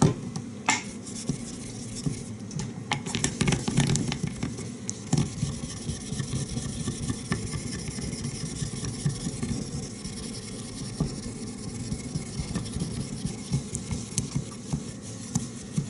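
Small nagura stone rubbed back and forth over a wet fine-grit water stone, a repeated gritty scrubbing that raises slurry on the stone's face.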